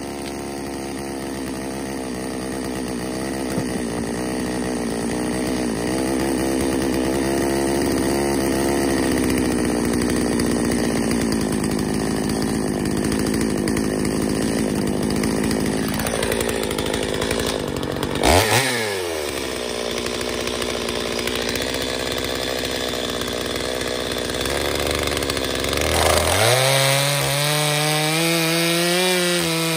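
Gas chainsaw cutting through a sycamore round at high revs. About eighteen seconds in the engine drops back to idle. Near the end it revs up again, its pitch rising and then sagging as it takes the wood.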